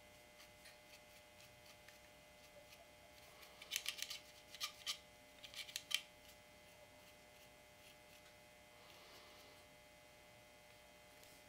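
Faint clicks and light scraping from a small brush working lube onto the steel action of a Winchester Model 1903 .22 rifle, with a cluster of sharp ticks in the middle. The rest is near silence.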